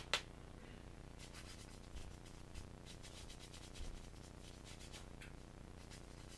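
Faint rubbing and scraping with a sharp click at the start and bursts of light rapid clicks; the chainsaw engine is not running.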